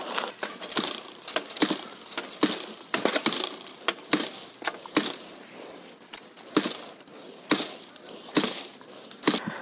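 A hand blade chopping into green bamboo stems at the base of a clump: more than a dozen sharp, uneven strikes, about one a second, with dry leaves crackling between them.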